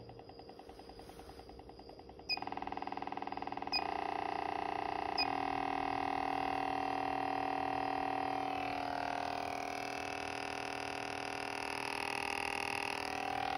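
A copper coil on a steel core buzzing as it is pulsed with a square wave, a steady tone rich in overtones. The buzz steps louder three times in the first five seconds, each step marked by a short beep, as the supply voltage is raised. In the second half its pitches bend and waver.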